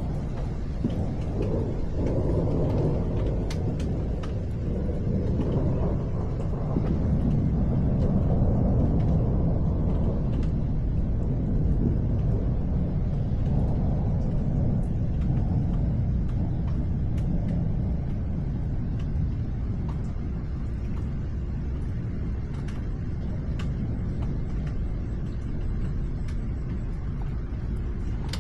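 Long rolling thunder rumble that swells over the first several seconds, holds through the middle and slowly dies away, with faint scattered ticks above it.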